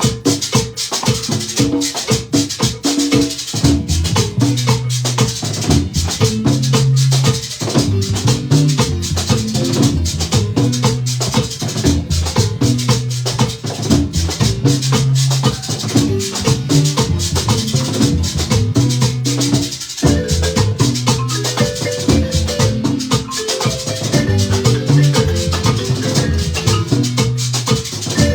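Marimba band playing dance music: mallet melody over held bass notes, with a steady rattling percussion beat.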